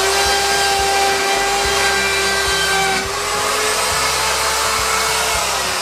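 Handheld electric power tool cutting a shallow groove for the lamp cord into a burl aspen lamp base, running steadily at high speed with a constant whine over the cutting hiss; its pitch shifts slightly about three seconds in.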